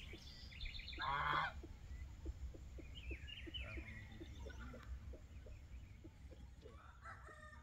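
A goose honks once, a harsh call about a second in, with faint chirping of other birds around it.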